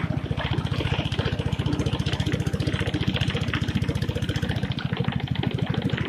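A small tour boat's engine running steadily, heard from aboard the moving boat, with a fast, even chugging pulse.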